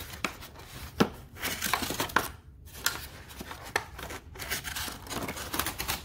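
Plastic toy train track pieces being worked loose from a tight styrofoam packing tray: irregular sharp clicks and scraping, rubbing noise of plastic against foam.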